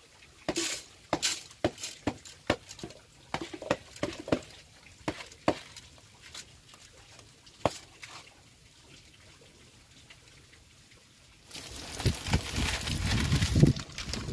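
Rice grains tipped from a bamboo basket into an aluminium pot and worked by hand, pattering with sharp separate ticks against the pot. About eleven seconds in, a loud dense rustling crackle of dry palm leaves being handled takes over.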